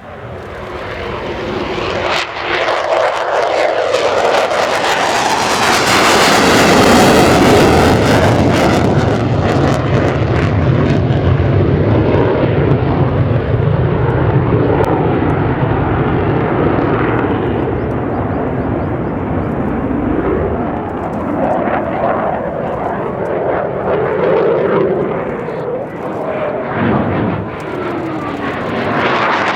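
Jet noise from an F-15DJ Eagle's twin turbofan engines. It swells quickly at the start and is loudest about seven seconds in as the jet passes. It then stays loud, rising and falling slowly as the jet keeps maneuvering.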